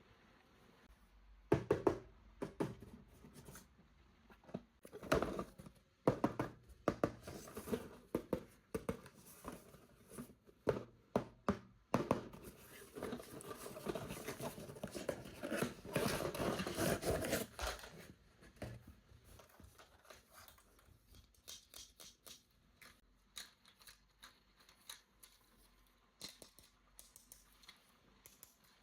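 Hands unpacking a toy from its packaging: a run of sharp clicks and taps of plastic and cardboard being handled, with a longer stretch of scraping and tearing in the middle, then fainter ticks.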